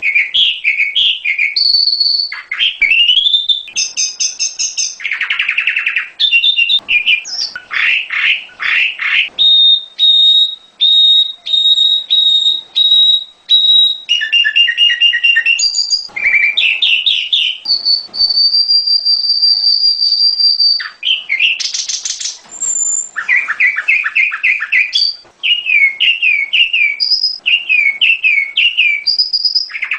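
Prenjak gunung (a prinia) singing a long, varied song: fast runs of repeated down-slurred chirps, strings of short high whistled notes, and one long held whistle about two-thirds through.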